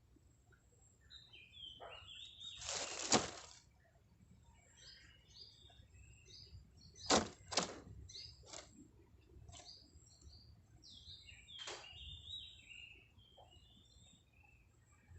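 Small birds chirping in short, scattered calls, with a loud rustling burst about three seconds in and two sharp knocks about seven seconds in.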